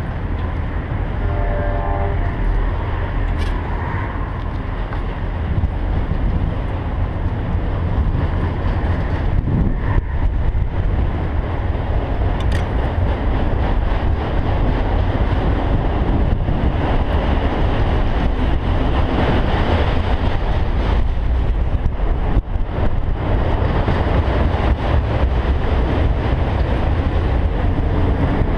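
Autorack freight cars rolling past on the rails: a steady rumble of wheels, with a few sharp clicks.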